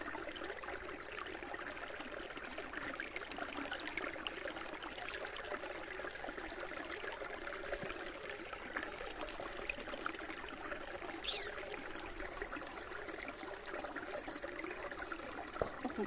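Steady rushing of running water, like a small forest stream, with one short high chirp about two-thirds of the way through.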